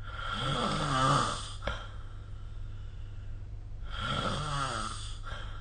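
A person snoring: two long snoring breaths about three seconds apart, the first louder and ending in a short click, over a low steady hum.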